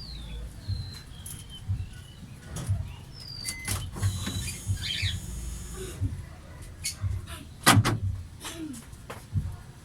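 Scattered clicks and knocks from work on a car door's lock mechanism while a newly fitted door lock actuator is being tested, with one sharp loud click about three quarters of the way through. Short high chirps, like birds, sound now and then in the background.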